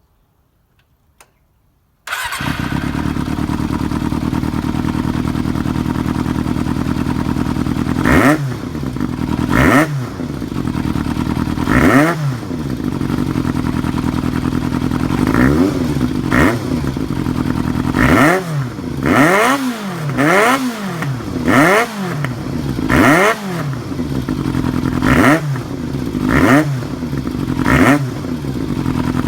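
Yamaha XJR400S inline-four through an RPM aftermarket exhaust with F-type silencer, its inner baffle fitted. After about two seconds of near silence the engine is heard idling steadily, then from about eight seconds in it is blipped a dozen or so times, the revs rising and falling, the blips coming closer together toward the end.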